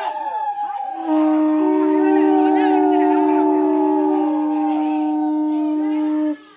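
Ritual horns blown in long steady blasts, two at once at different pitches. The higher one stops about two-thirds of the way through, and the lower one cuts off suddenly near the end. Wavering, gliding cries run beneath them.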